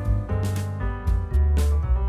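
Background music led by piano over a steady bass line, with light percussion.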